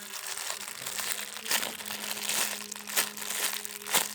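Plastic crinkling and rustling, as of a squishy toy's plastic wrapper being handled, with several sharp crackles.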